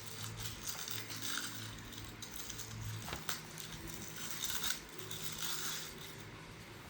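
Plastic DVD case being handled: rustling and scraping, with scattered clicks and one sharp click about three seconds in.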